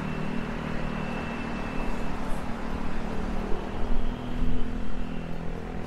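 Street traffic on the road alongside: cars running past, a continuous engine and tyre hum that swells unevenly from about halfway through.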